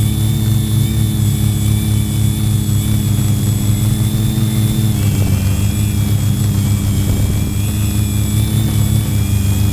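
Quadcopter's electric motors and propellers whirring steadily in flight, heard from a camera mounted on the craft: a loud, even hum with a high whine above it, the pitch shifting slightly about halfway through and again near the end.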